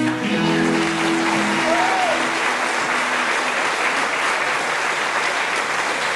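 Audience applauding at the end of a song, with the band's last held chord dying away over the first couple of seconds.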